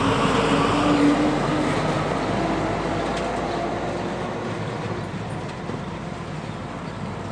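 Mercedes-Benz semi-truck's diesel engine running as the loaded rig pulls past and away. The engine note is loudest about a second in, then fades as the truck draws off down the road.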